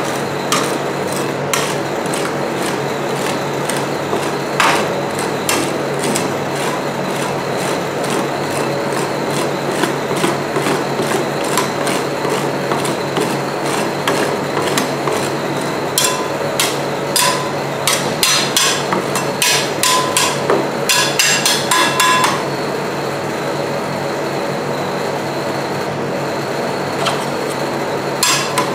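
Metal spatulas tapping and scraping on the frozen steel plate of a rolled ice cream machine, over the machine's steady hum. A quick run of sharp taps comes about two-thirds of the way through, and a couple more near the end as the ice cream is scraped into a roll.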